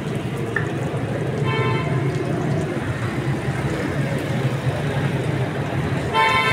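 Steady street traffic noise with a vehicle horn tooting briefly about a second and a half in and again, louder, near the end.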